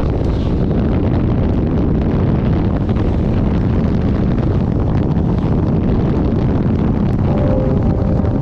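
Wind rushing over a helmet-mounted microphone on a moving motorcycle, with the bike's engine and road noise running steadily underneath.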